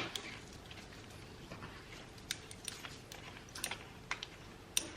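Light, scattered clicks and taps of small plastic and metal parts being handled: a USB microphone and its tripod stand being fitted together by hand.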